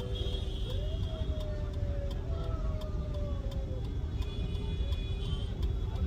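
Busy street ambience: a steady low rumble of traffic, with faint distant voices drifting over it.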